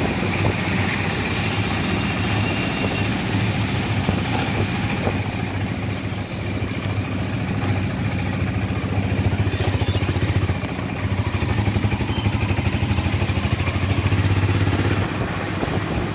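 Auto-rickshaw engine running steadily while driving, heard from inside the open cabin with road and wind noise, a little louder in the second half.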